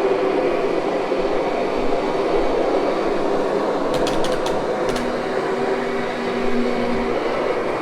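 Kirby upright vacuum cleaner running steadily as it is pushed over carpet, with a few sharp clicks about four to five seconds in.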